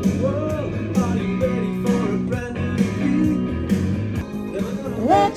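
Background music: an upbeat pop-rock track with guitar.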